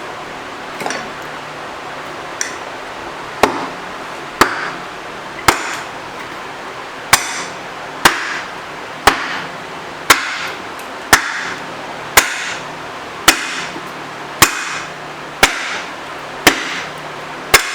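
A 4-pound sledgehammer striking a rusted-in tailstock over and over to drive it along the ways of a Monarch 10EE lathe. Each blow is a sharp crack with a short ring. The blows come a few seconds apart at first, then settle into a steady rhythm of about one a second.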